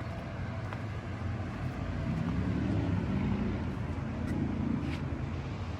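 Low, steady rumble of road traffic, growing a little louder in the middle.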